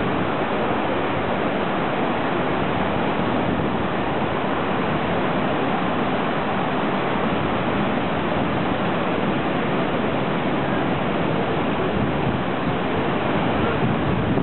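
Heavy surf breaking and washing up a beach, a steady, even rush of noise.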